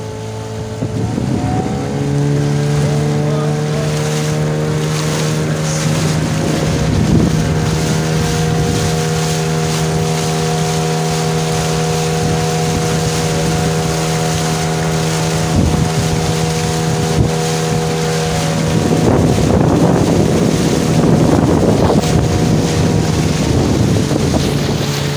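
Outboard motor pushing a wooden dugout boat along at speed, its pitch rising over the first couple of seconds and then holding steady. Water rushes and splashes along the hull, and wind hits the microphone, louder near the end.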